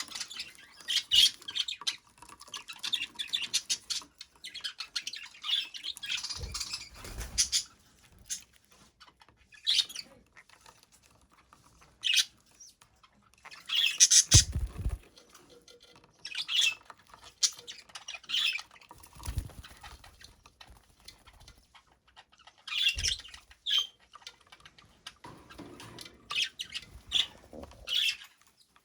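Budgerigar chattering in short bursts of high chirps and squawks, with gaps between them. A few dull thumps come in among the chirping.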